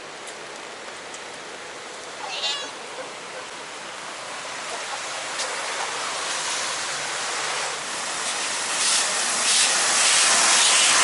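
Steady rain hiss with a cat meowing once, briefly, about two seconds in. Toward the end a rushing noise of tyres on the wet road grows louder as a coach drives past.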